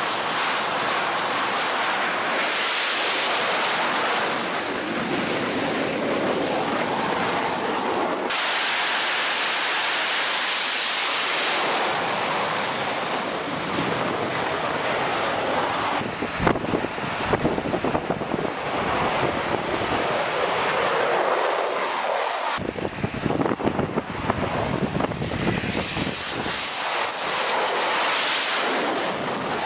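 F/A-18F Super Hornet jet engines running on a carrier flight deck: a loud, continuous rushing noise that changes abruptly at several cuts. Near the end a high whine rises and falls.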